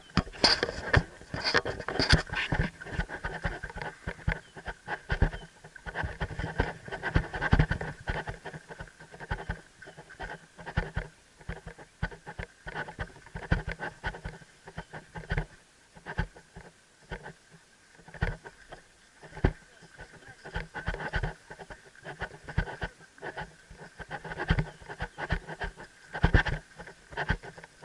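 Helmet-mounted action camera knocking and rubbing against the rider's helmet in irregular clicks and thumps, jostled by the walking horse. The loudest knocks come in the first couple of seconds, when a hand is handling the camera.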